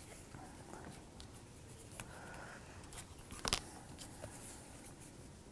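Small laser-cut wooden pieces being handled and fitted together: faint rubbing and light taps, with a sharper click about three and a half seconds in.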